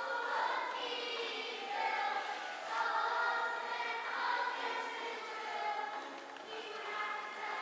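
A chorus of children singing together in sustained, held notes.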